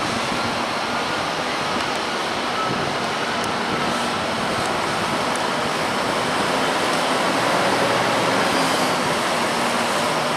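Fendt tractor diesel engines running steadily under load while buckraking and rolling grass on a silage clamp. The engine noise is a loud, even rush with a faint hum and gets a little louder in the second half.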